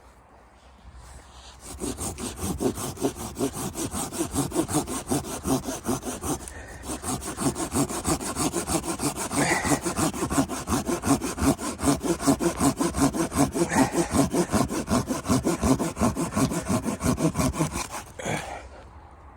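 Hand saw cutting through wood in quick, even back-and-forth strokes. It starts about two seconds in, pauses briefly partway, and stops about a second before the end.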